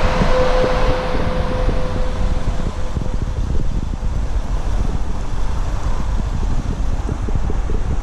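Wind buffeting the microphone: a loud, steady, flickering low rumble. A thin steady whine fades away over the first three seconds.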